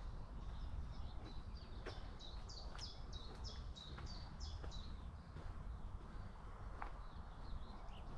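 A songbird sings a quick run of about eight high, falling notes between two and four and a half seconds in. Beneath it is a constant low rumble with a few scattered clicks.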